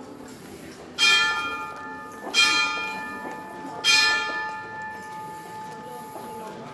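Church bell struck three times, about a second and a half apart, each stroke ringing on and fading away.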